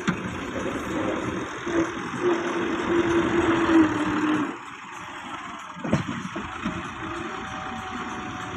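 Farm tractor's diesel engine labouring under heavy load as it hauls a trolley full of soil, loud for the first few seconds, then easing off about four and a half seconds in. A single heavy thump about six seconds in.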